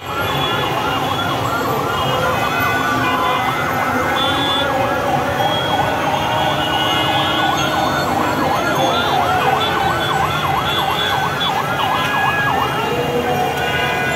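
Fire engine siren sounding in a fast, repeating up-and-down yelp that cuts off about 12 to 13 seconds in. A steady low din of street noise runs underneath.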